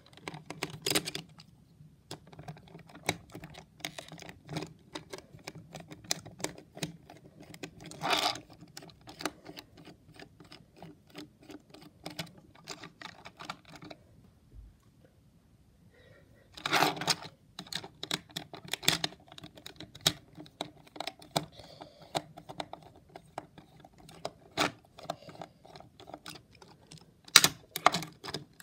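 Hexbug BattleBots Witch Doctor toy robot clicking and clattering, plastic parts knocking, over a faint small-motor hum. There is a short quiet pause about halfway through.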